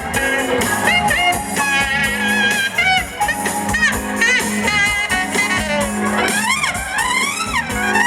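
Live soul band playing: electric guitar, bass, drums and a horn section, with a lead vocal rising and falling over it in the second half.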